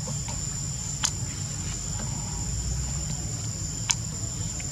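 Insects droning: one steady, unbroken high-pitched tone over a low rumble, with two sharp clicks, one about a second in and one near the end.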